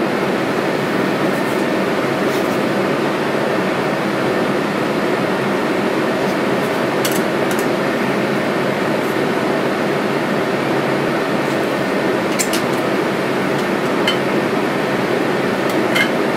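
Steady whir of a fan or air blower, with a few light clicks of a scalpel and culture dishes being handled.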